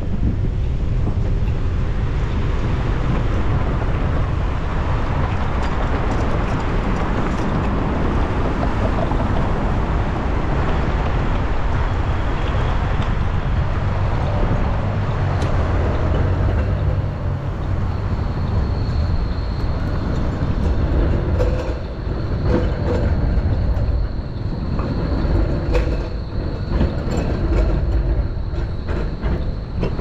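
Wind rumbling heavily on a GoPro 10's microphone on a moving bicycle, mixed with passing vehicle noise. A steady high whine comes in about two-thirds of the way through.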